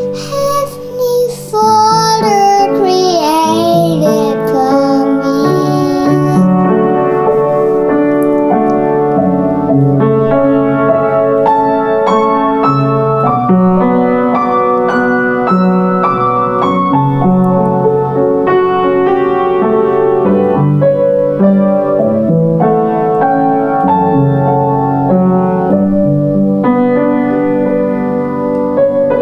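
Piano accompaniment to a children's hymn playing a steady succession of chords. In the first few seconds a young girl's singing voice wavers and slides down at the end of a phrase, and after that the piano plays on alone as an interlude.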